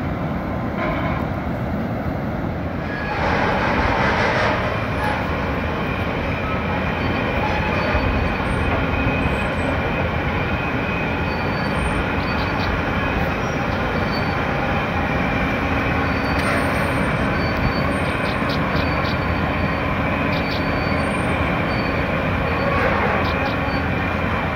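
The movable dam's gate-hoist car runs along its rails on the bridge, a steady mechanical rumble and hum with scattered faint metallic squeaks and ticks. The sound grows louder about three seconds in, and rushing water from the dam is mixed in.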